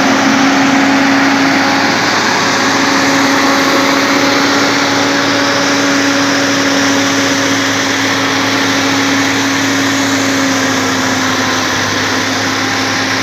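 Bulldozer's diesel engine running steadily at an even pitch, with no change in revs.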